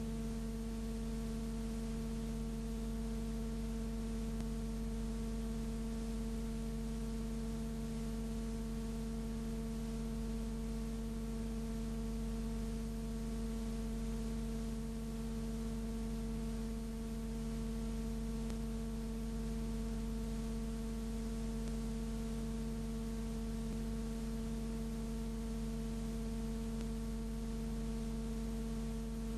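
Steady electrical hum made of several constant tones over an even hiss, unchanging throughout, with no street or tram sound.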